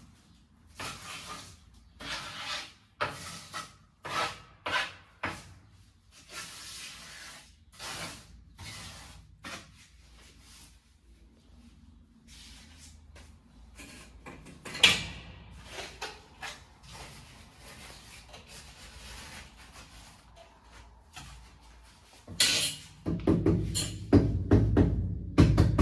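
A steel trowel scraping and spreading cement mortar for floor tiles in a string of short strokes, with one sharp knock about fifteen seconds in. Louder, deeper knocking takes over near the end.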